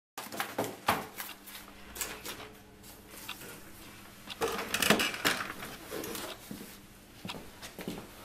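Scattered clicks, knocks and rustling of a person handling things at an office desk and moving about, with the busiest cluster about halfway through, over a faint steady hum.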